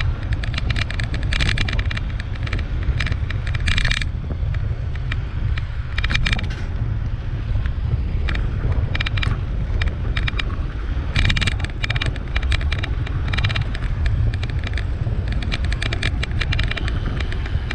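Wind buffeting the microphone during a bicycle ride: a steady low rumble, broken by clusters of short clicks and rattles.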